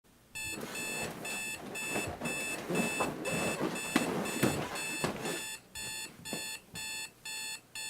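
Electronic alarm clock beeping in a quick, even series of short high beeps, about two or three a second. For the first five seconds a rustling noise with a few sharp knocks sounds underneath, then the beeps go on alone.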